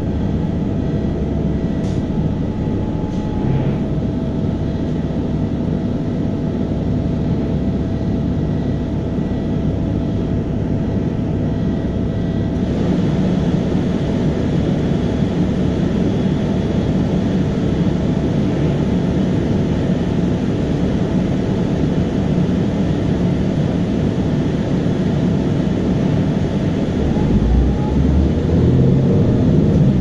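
Steady rumble of a bus's engine and tyres on the road, heard from inside the cabin, with a faint steady whine running through it. It grows slightly louder about a third of the way in.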